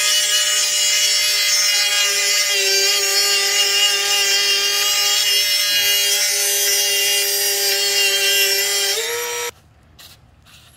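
Dremel rotary tool cutting through a threaded metal pipe: a steady high motor whine over the hiss of the cut, its pitch wavering a little. It cuts off abruptly near the end, followed by a few faint clicks.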